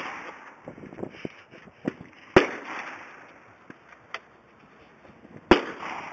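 Two loud gunshots about three seconds apart at an outdoor firing range, each ringing off in a long echo. Fainter sharp cracks from other shots fall between them.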